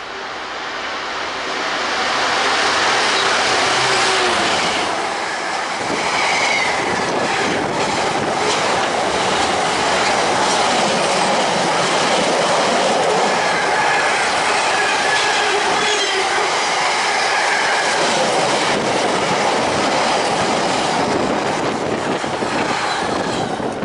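Container freight train passing close by, growing louder over the first few seconds and then holding: wagon wheels clattering over rail joints under a steady rumble, with brief high wheel squeals a few times.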